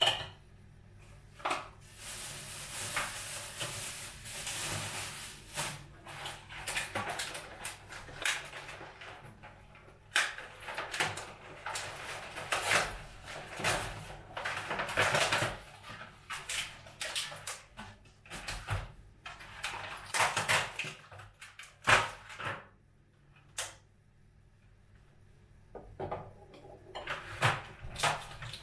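Household handling sounds in a small room: a string of clicks and knocks like cupboard doors and dishes being handled, with stretches of rustling or hissing noise in between, and a quiet gap near the end.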